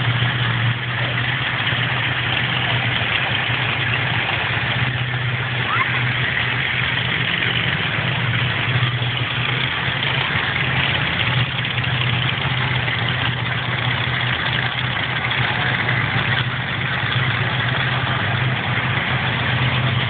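Monster truck engine idling, a steady low drone with no sharp revving.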